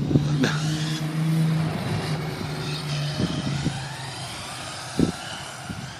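Brushless RC car motor whining, its pitch rising as it speeds off, the sound fading away, with a few light knocks.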